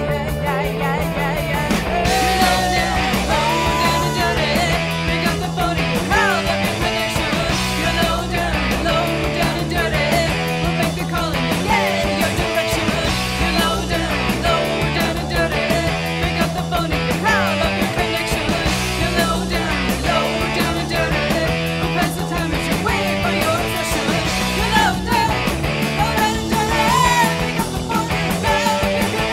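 Studio recording of a rock band, with electric guitar, bass guitar and drums playing a steady beat over a repeating bass line.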